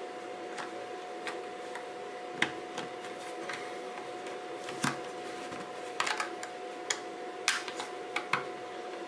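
Irregular small plastic clicks and taps, about a dozen at uneven spacing, as the snap-on plastic faceplate and canopy of a DJI FPV drone are pressed back onto its body and their tabs click into place. A faint steady tone runs underneath.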